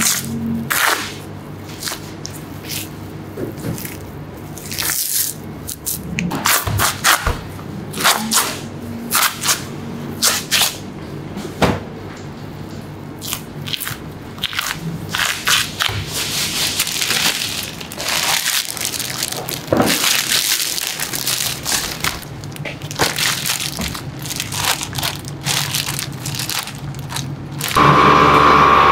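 Clear plastic wrapping film crackling and rustling in irregular bursts as it is pressed around a rack of raw beef ribs. Near the end a chamber vacuum-packing machine starts up with a loud, steady hum.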